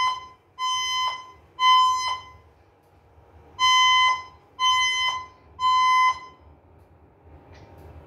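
Fire alarm speaker-strobes sounding the temporal-three evacuation tone between voice messages. A steady high beep comes in groups of three, each beep about half a second long, with a longer pause before the next group of three. It is the fire evacuation signal from a manual pull alarm.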